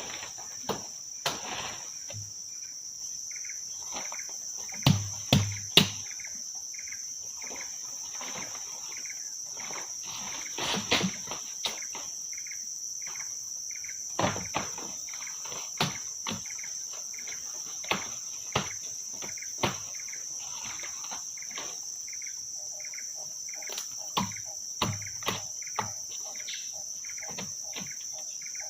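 A steady, high-pitched insect chorus of crickets or cicadas, with short chirps repeating over it. Irregular sharp knocks and thuds break in a dozen or so times, some in quick groups of two or three, from work at the camp.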